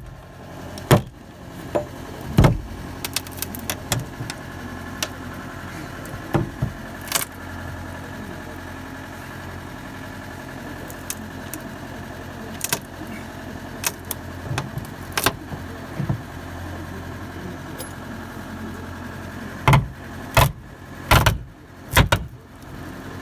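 Wooden boards being worked loose, scattered knocks and bangs over a steady motor hum, with a run of loud knocks near the end.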